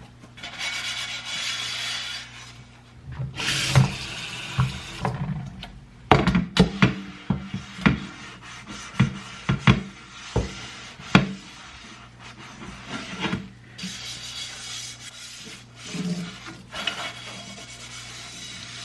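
A sponge scrubbing a surface with cleaning powder, in rasping strokes, with a run of sharp knocks and clatters in the middle.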